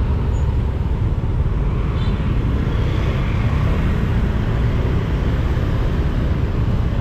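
Steady low rumble of vehicle and road traffic noise while driving slowly through a traffic jam.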